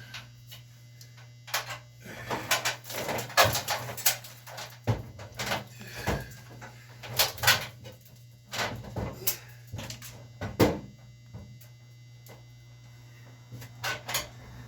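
Irregular knocks, clunks and scrapes of a range hood and its mounting hardware being handled and fitted against the wall, in a cluster for several seconds and again briefly near the end.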